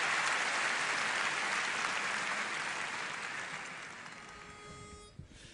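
Audience applause dying away, fading out over the last couple of seconds.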